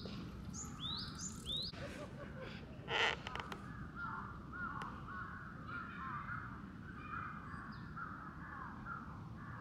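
Crows cawing over and over in short arched calls, with a few rising bird whistles in the first two seconds and a brief rush of noise about three seconds in.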